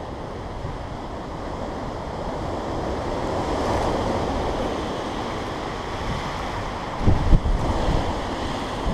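Strong wind blowing steadily, swelling about halfway through. A hard gust buffets the microphone with a heavy low rumble near the end.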